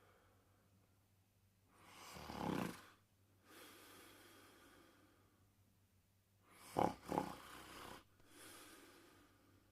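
Snoring in sleep: two loud snores, about two seconds in and about seven seconds in, the second in two sharp pulses, each followed by a longer, quieter breath.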